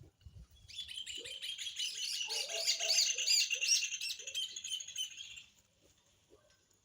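A songbird singing a long, rapid twittering song of quick high chirps, lasting about five seconds and stopping shortly before the end, with a few short low calls underneath.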